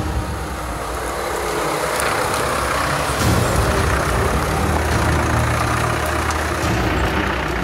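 Land Rover Discovery's engine running steadily as the 4x4 crawls up a muddy slope and passes close by.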